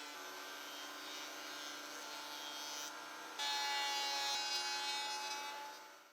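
Portable thickness planer's electric motor running steadily with a whine. It gets louder about three and a half seconds in, then fades and cuts off at the end.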